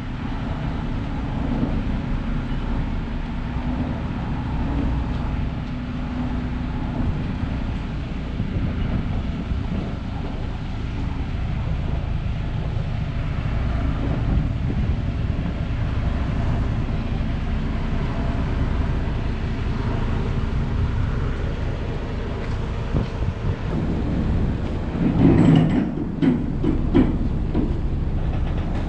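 Steady low rumble of harbour ambience on a ferry pier, with a few louder irregular sounds about 25 seconds in.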